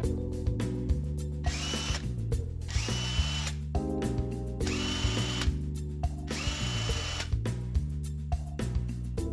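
Earthquake XT 20V half-inch cordless impact wrench spinning free with no load, in four trigger pulls of about a second each. Each pull brings a motor whine that climbs quickly, holds, then stops.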